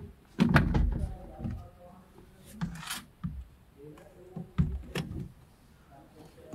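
Hands and tools working on a car door's inner lock parts: a series of sharp clicks and knocks, the loudest about half a second in, with a brief scrape about three seconds in.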